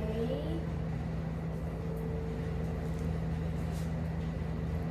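Crystal singing bowls ringing in a steady, sustained drone, with a higher tone that fades out about three and a half seconds in.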